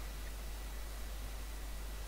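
Room tone: a steady hiss with a low hum underneath and no distinct sounds.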